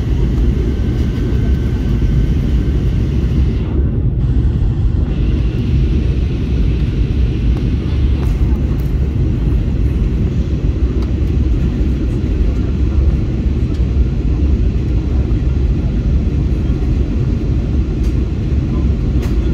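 Steady cabin noise of an Airbus A321neo in flight, heard inside the cabin by the wing: a constant low rumble of engines and airflow with a fainter hiss above it.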